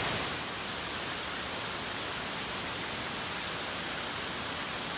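A large mountainside waterfall roaring steadily, heard close to its base as an even, unbroken rush of noise.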